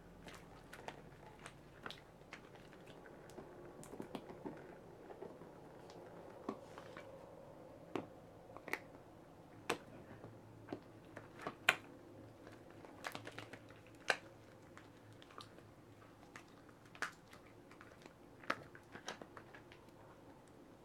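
Long latex glove being pulled up and smoothed along an oiled arm: irregular sharp snaps and small squelches of the rubber against slick skin.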